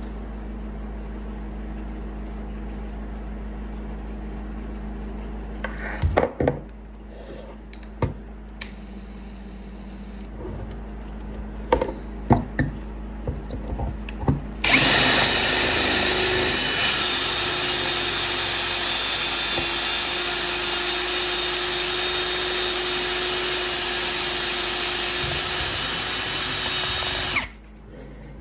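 A few knocks and clatters of handling over a low hum, then about halfway through an electric drill starts and runs steadily for about thirteen seconds before cutting off suddenly, boring a hole into the old axe handle.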